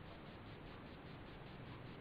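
Faint steady hiss: room tone and microphone noise, with no distinct sound events.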